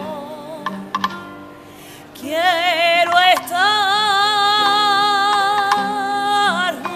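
A woman singing a saeta, the flamenco devotional song of Holy Week, in full voice. An ornamented phrase fades out just under a second in. After a short pause a new phrase climbs through quick ornaments into one long held high note with a slight waver, which breaks off near the end.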